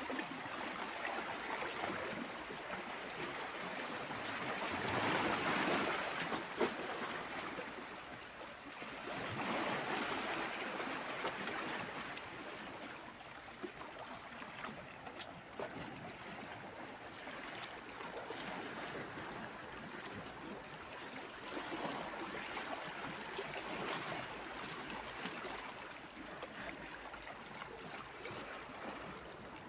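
Small sea waves washing and splashing around shoreline rocks, the wash swelling and easing every few seconds, loudest about five seconds in.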